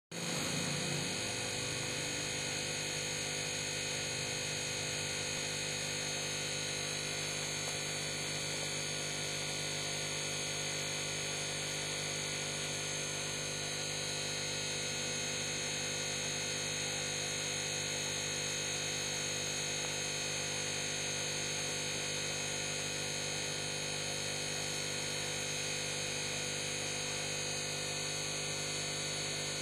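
Steady electrical hum with a stack of even overtones and a thin high whine above it.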